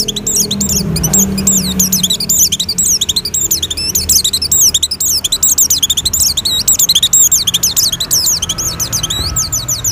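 Pleci (white-eye, Zosterops) in breeding condition singing a fast, continuous twittering song of high, sweeping chirps, the kind of song used as a lure for other white-eyes. A low steady drone runs underneath and is strongest in the first two seconds.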